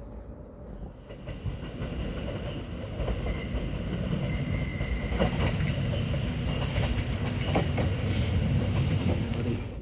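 A train running on the rails, its low rumble building up, with high-pitched wheel squeals in the second half.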